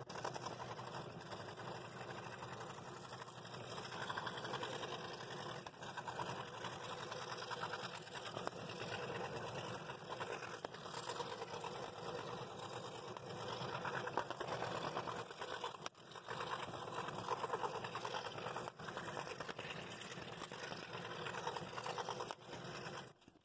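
Scroll saw running, its fine blade reciprocating rapidly as it cuts an inside line through quarter-inch wood: a steady, fast chatter that dips briefly partway through and stops just before the end.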